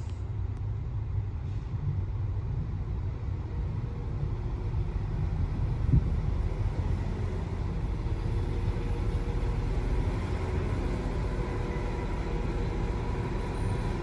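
Steady low rumble of an approaching NI Railways Class 4000 diesel multiple unit, with faint engine tones growing stronger in the second half.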